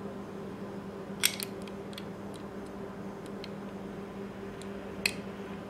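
Small clicks and taps of a plastic part being fitted into the metal slide of an airsoft Colt 1911 gas blowback pistol, with the sharpest click about a second in and another near the end. A steady low hum runs underneath.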